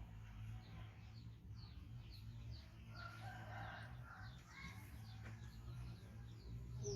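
A faint animal call about three seconds in, lasting about a second, over a steady low hum. Before it comes a run of short, high, falling chirps.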